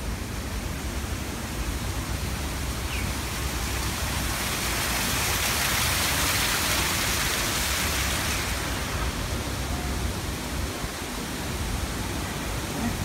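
Water splashing down a small rock cascade, a steady rushing that grows louder about halfway through, over a continuous low rumble.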